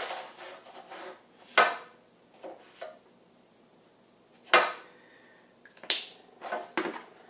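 A handful of short, sharp taps and knocks of a pen and paper being handled against a cardboard cereal box while a measurement is marked, the loudest about four and a half seconds in and a quicker cluster of small clicks near the end.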